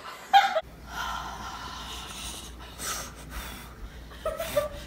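A woman's loud gasp, then a long breathy rush as she breathes pot steam in and blows it out, with a low rumble of breath hitting the microphone. A second short gasp comes near the end.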